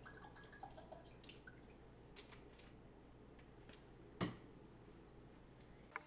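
Near silence over a low room hum, with a few faint drips of vanilla extract falling into a glass jar of brine and one sharper click about four seconds in.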